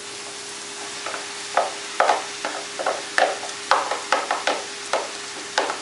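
Sliced potatoes tipped into a frying pan of leeks in hot olive oil, the oil sizzling steadily. From about a second and a half in, a wooden spoon scrapes and knocks the potatoes out of a plastic tub into the pan in a run of sharp strokes, about two a second.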